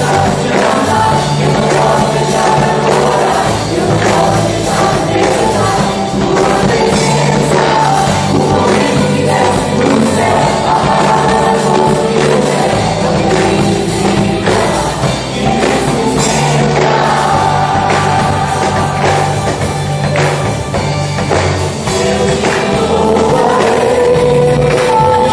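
Christian worship song performed live: a group of voices singing together over a band with bass and drums.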